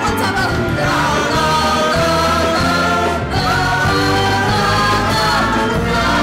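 Upbeat live pit-orchestra music for a dance section of a stage musical number, with voices singing along.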